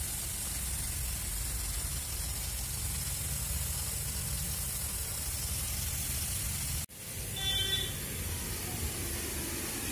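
Garden shower sprinkler heads spraying water: a steady hiss, with a brief break about seven seconds in.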